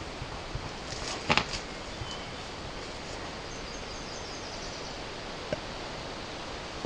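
Outdoor woodland ambience with a steady hiss, typical of a trail camera's microphone. A brief rustle with a few clicks comes about a second in, and faint, high, short chirps come in the middle.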